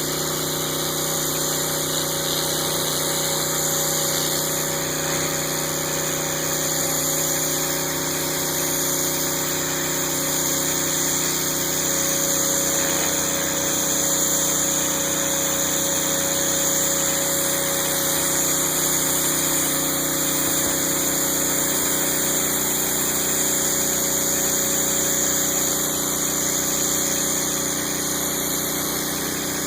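Pressure washer's 9 hp Honda GX single-cylinder engine running steadily at constant speed, driving the pump.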